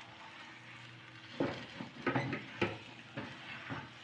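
Sticky glutinous rice for biko being stirred in a pan with a spatula: short scraping strokes about every half second, starting a little over a second in, over a faint sizzle from the pan.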